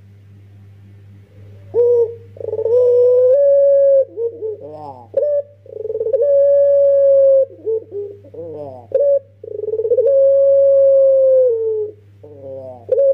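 Young puter pelung (ringneck dove) cooing: about two seconds in it starts a run of three long, drawn-out coos, each a steady held note of about two seconds led in by quick rolling, wavering notes, with another coo beginning near the end.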